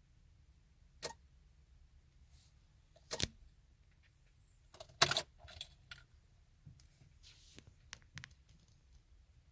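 Sharp single clicks roughly every two seconds, the loudest about five seconds in, with fainter small clicks and rattles after it. This is plausibly the 2014 Chevy Silverado clicking instead of cranking on a start attempt, the symptom of its intermittent no-start fault.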